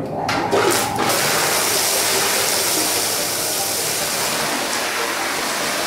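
Pressure-washing wand spraying water onto a rug's pile: a loud hiss of spray that sputters for about the first second, then runs steadily.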